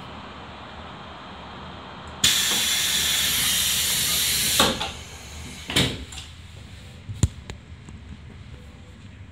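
Air-operated sliding doors of a JR Hokkaido local train closing: a loud hiss of air starts suddenly about two seconds in and lasts a couple of seconds, then the doors thud shut, followed by another thud and a sharp click.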